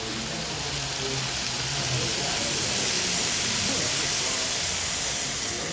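N gauge model train running past on the layout track: a hissing rumble of small wheels on rail that swells to its loudest about halfway through, then fades.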